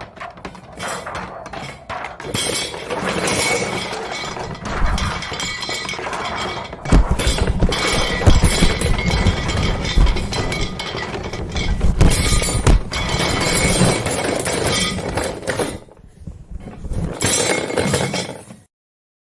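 Brittle, glassy objects breaking and clinking: a long run of shattering and tinkling, with heavier crashes in the middle, that stops abruptly just before the end.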